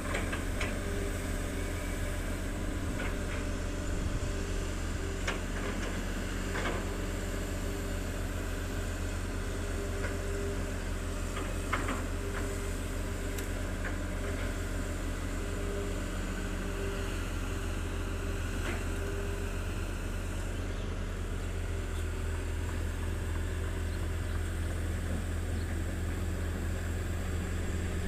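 Diesel engines of a Volvo EC210B long-reach excavator and a Hitachi ZX200 excavator running at a steady, low drone while they dig, with a few faint knocks scattered through.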